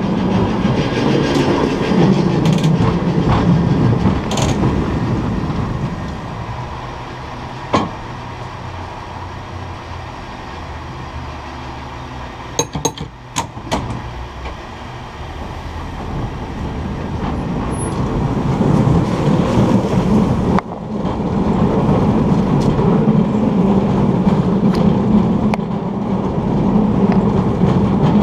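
San Francisco cable car rolling along its track: a steady, loud rumble and rattle of steel wheels and running gear on the rails. It quietens for a stretch in the middle, where a few sharp clicks sound, then grows loud again for the last third.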